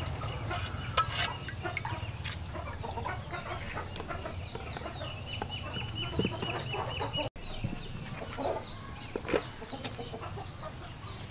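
Chickens clucking, with a run of repeated calls a little past the middle. Water splashes briefly near the start as a hand gropes for eels in a clay water jar.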